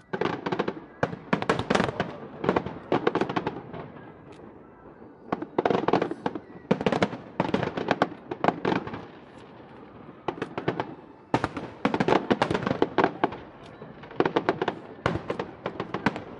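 Aerial fireworks display: rapid volleys of bangs and crackles from bursting shells, coming in about four dense bursts of a few seconds each with short lulls between.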